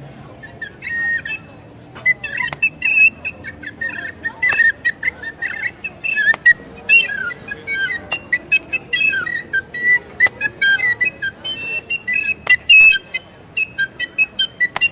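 A small hand-held whistle blown in quick chirping, warbling bursts of high notes that bend up and down.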